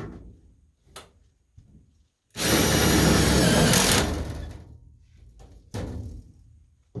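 Power drill driving a self-tapping screw into sheet-metal ductwork in one run of about a second and a half. A few short knocks come before and after it.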